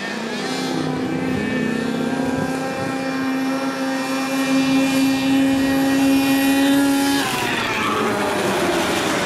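Two small open-frame race buggies (springers) accelerating hard side by side in a dirt drag race, their engines held at high revs with a steady note that climbs slightly. About seven seconds in, the pitch drops sharply as they pass.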